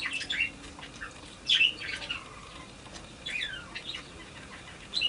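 Bird chirping: short, high calls that slide downward, in little clusters about every second and a half.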